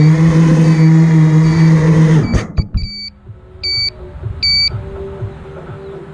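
FPV quadcopter motors whining steadily, then cutting out about two seconds in with a couple of sharp knocks as the drone drops to the ground, its old 4S battery run flat. Three short electronic beeps follow.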